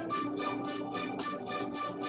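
Background music with a steady beat, about four beats a second, over held pitched notes.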